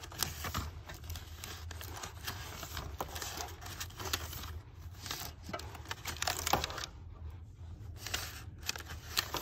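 Paper rustling and scraping as a spiral sketchbook is handled and drawn in, with scattered small clicks and taps over a low steady hum.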